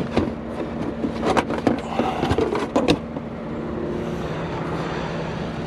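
Knocks and clatter of objects being handled and set down for about the first three seconds, then a steady low hum with a couple of steady tones.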